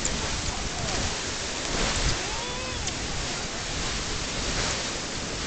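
Grand Geyser, a fountain geyser, erupting: a steady rush and hiss of water jetting and splashing back down, like heavy rain.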